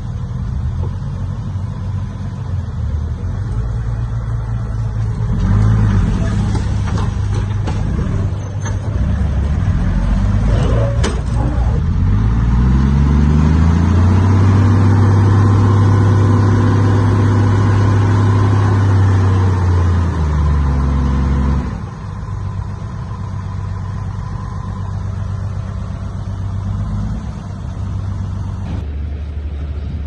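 Heavy earthmoving machine's diesel engine running. It rises in pitch as it revs up, holds at high revs for several seconds, then drops suddenly back to a lower, steady running speed.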